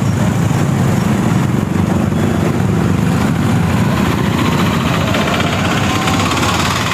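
Steady road traffic with vehicle engines running close by.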